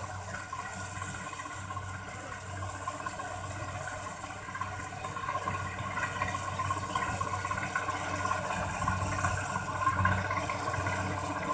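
Mechanical rice harvester's engine running steadily, growing a little louder toward the end.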